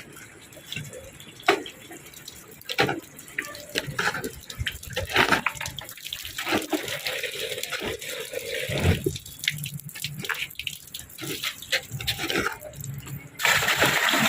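Water splashing and dripping in irregular spurts, then a loud, steady gush of pouring water starting about a second before the end.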